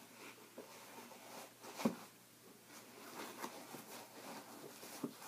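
Faint scraping and rustling of fingers prising open a box's packaging, with a sharp tap about two seconds in and a smaller one near the end.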